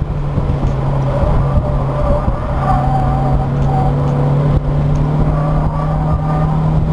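Mazda MX-5 Miata's four-cylinder engine running under power at a steady pitch on track, heard from inside the car with a constant rush of cabin noise beneath it.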